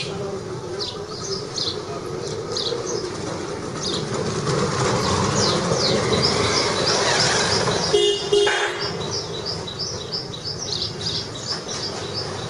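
Street noise with birds chirping repeatedly in short falling notes, a steady hiss underneath, and a brief vehicle horn toot about eight seconds in.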